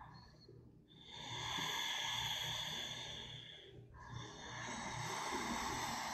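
A person breathing audibly through the nose in a standing forward bend: two long, slow breaths of about three seconds each, with a short pause between them.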